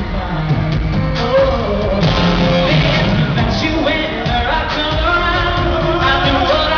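Live pop song: a male lead singer over a full band, performed in an arena.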